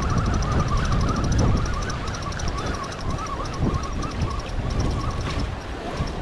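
Wind buffeting the microphone and small waves washing against jetty rocks, with a thin wavering tone that runs throughout.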